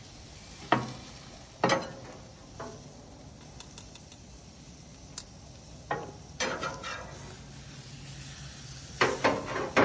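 Chicken pieces sizzling in a pan, broken by several sharp knocks and clinks of a utensil against the pan as the pieces are flipped and lined up; the loudest knocks come about a second and two seconds in, with a cluster near the end.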